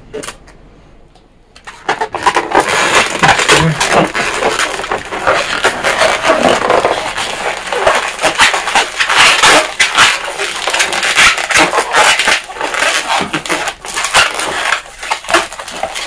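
Latex modelling balloons squeaking and rubbing against each other as they are twisted and locked together, starting about two seconds in and going on loudly with many short squeaks.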